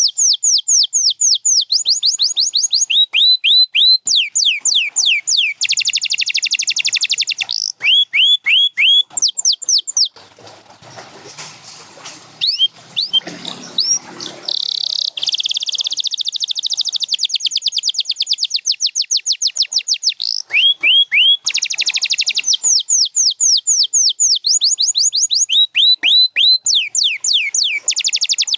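Domestic canary singing in long, fast trills of rapidly repeated sweeping notes, each run switching to a new note type every second or two. About a third of the way in the song breaks off for a few seconds, leaving only a faint low background noise and a few isolated notes, then resumes in the same rapid trills.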